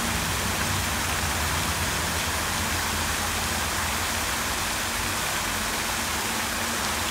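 Pond fountain spraying a tall plume of water that falls back onto the pond surface, making a steady splashing hiss.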